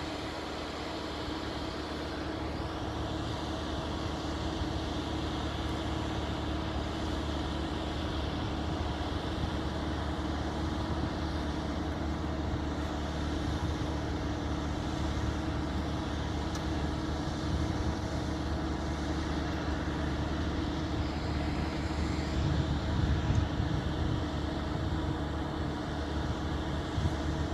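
Steady drone of a small single-engine propeller plane's engine running at low taxi power, heard from afar over outdoor rumble, growing slightly louder as it goes.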